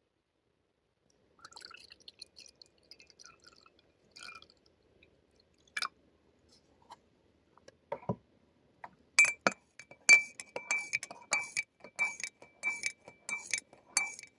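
A series of sharp clinks like small hard objects striking glass, each leaving a short ringing tone at the same pitch. It begins with faint scattered clicks, has a couple of single clinks, then runs to a quick run of about three clinks a second over the last five seconds.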